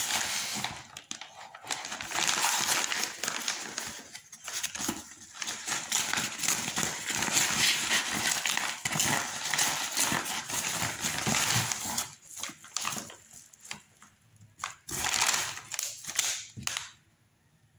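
Crinkling and rustling of a padded paper mailer and a plastic anti-static bag being handled and opened by hand, in bursts of sharp crackles with brief pauses.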